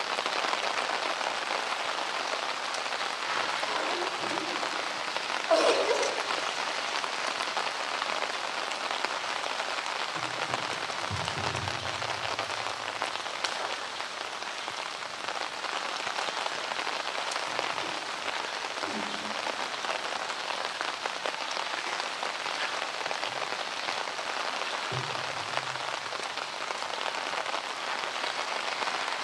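Heavy rain pouring down steadily, an even hiss of drops on hard surfaces. A brief louder sound stands out about six seconds in.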